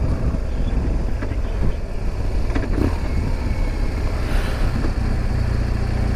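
BMW R 1200 GS flat-twin motorcycle engine running steadily while riding along the road.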